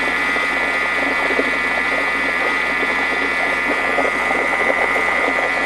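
Thermomix food processor's motor running steadily at speed 4, its blades whirling a creamy salad dressing in the steel bowl: a steady motor whine with a high tone over it.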